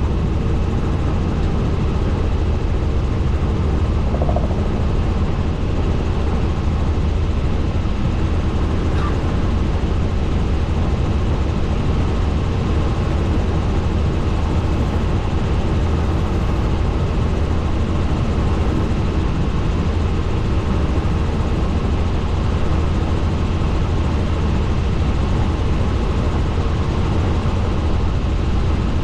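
Helicopter in flight: steady rotor and engine noise, strongest in a deep low rumble, with a few steady hum tones above it and no change in pitch or level.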